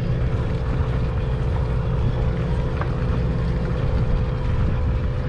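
A party boat's engine running steadily with a low, even hum.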